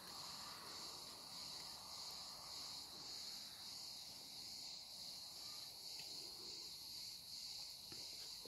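Faint, steady high-pitched chorus of chirping insects, the kind made by crickets or cicadas, pulsing slightly at a regular pace.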